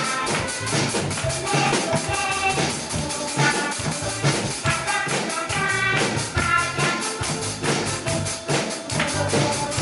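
Drum kit played along to a children's song backing track: a steady beat of drum and cymbal strokes under the tune.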